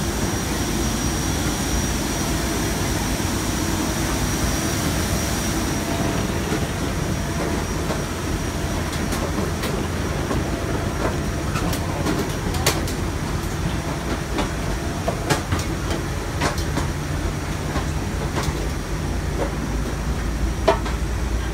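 Steady low rumble of airport apron noise around a parked airliner, with a thin high whine that fades about six seconds in. From about nine seconds on, scattered knocks of passengers' footsteps on the metal stair treads of a covered boarding stairway.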